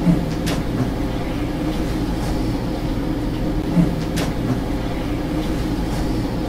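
Steady low hum and hiss of a heavily amplified recording, with two faint clicks and two brief low bumps, one near the start and one just before 4 seconds in. It is presented as an alleged spirit voice, drawn out as 'Staaaaacy'.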